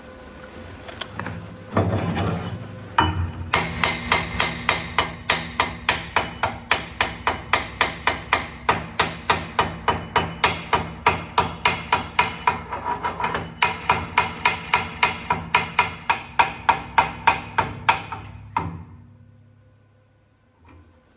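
A hammer striking metal over and over at an even pace of about four blows a second, over a steady low hum. The hammering stops suddenly a few seconds before the end.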